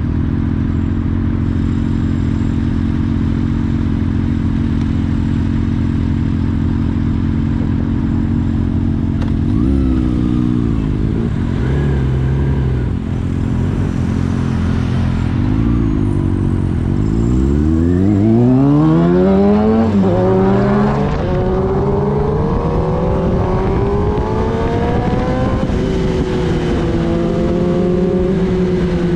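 Kawasaki Ninja ZX-10R's inline-four engine idling steadily at a stop and given a few short revs. A bit past halfway it pulls away, accelerating up through the gears with the pitch climbing and dropping back at each shift.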